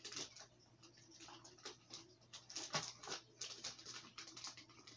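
Plastic bait packaging crinkling and rustling as it is handled, in short irregular scratchy crinkles over a faint low hum.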